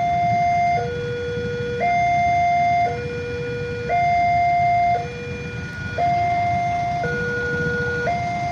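Railway level-crossing warning alarm sounding a two-tone electronic signal, high and low tones alternating about once a second. It warns that a train is approaching and the crossing is closed.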